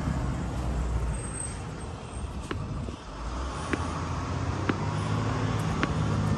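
Steady city street traffic noise: a low rumble of passing and idling road vehicles, with a few faint ticks about a second apart.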